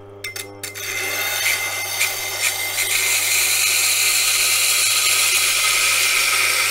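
Knife blade being ground on the coarse 80-grit wheel of a wet grinder, held in a jig clamp: a steady rasping hiss that builds up about a second in, over the low hum of the grinder's motor. A few light clicks at the start as the blade is set on the wheel.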